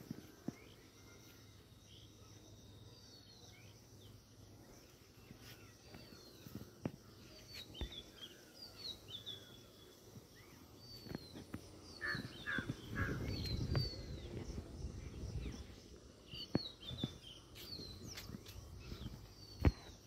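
Jungle babblers calling: scattered short, high chirps that slide downward, some in quick runs of two or three, busier in the second half. A few sharp clicks and a stretch of low rumble come a little after halfway.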